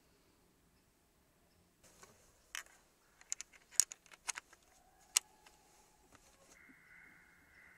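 Scoped bolt-action hunting rifle being loaded by hand: a string of sharp metallic clicks and rattles as cartridges are pressed into the action, starting about two seconds in and ending just after five seconds.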